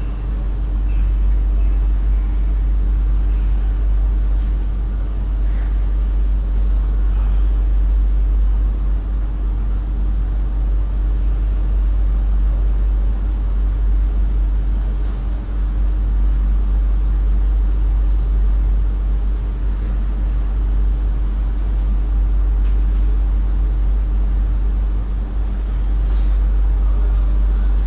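Steady low hum and rumble in the cab of a VIRM double-deck electric train standing still at a platform, with a steady mid-pitched tone from its running onboard equipment. A couple of faint ticks.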